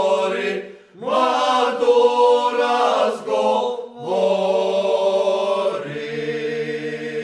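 Men's folk vocal group singing a cappella in several voices, drawn-out phrases with short breaths between them, ending on a long held chord.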